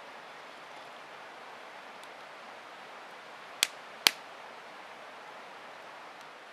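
Two sharp clacks about half a second apart, a little past the middle, over a steady background hiss.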